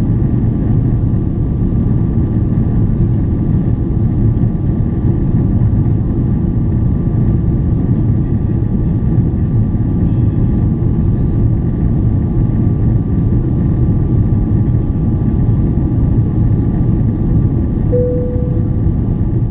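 Steady low cabin roar inside a Boeing 777-300ER in flight, from its engines and the airflow over the fuselage. A short steady tone sounds once near the end.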